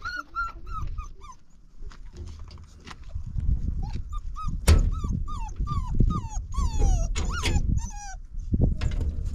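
Dog yelping and whimpering in short, high cries that fall in pitch: a quick run of about five at the start, then a longer run from about four seconds in. A low rumble runs underneath.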